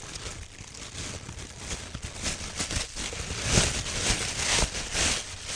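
Thin plastic bag crinkling and rustling as it is untied by hand, in irregular bursts that grow louder from about two seconds in.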